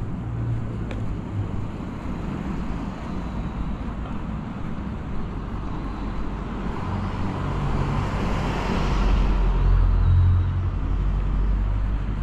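Road traffic on a city street: cars and engines running steadily, with one vehicle with a deep engine hum passing close by and getting louder from about seven to eleven seconds in.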